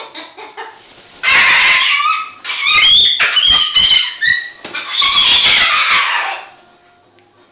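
Umbrella cockatoo screeching: a run of loud, harsh screams that starts about a second in and stops after about five seconds.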